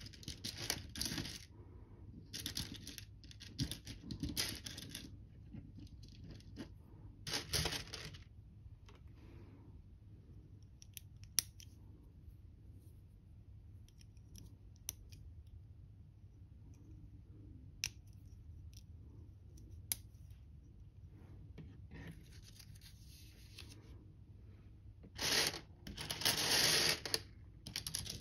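Loose LEGO pieces rattling and clattering as a hand sifts through them in a tray, in several bursts. In the quieter middle stretch come a few sharp single clicks of plastic bricks being pressed together.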